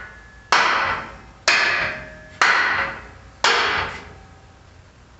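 Hammer striking steel four times, about a second apart, each blow ringing briefly.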